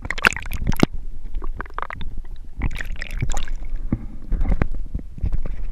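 Pond water sloshing and splashing against a waterproof action-camera housing riding at the waterline of a moving kayak. It comes in irregular splashy bursts about once a second over a steady low gurgling rumble.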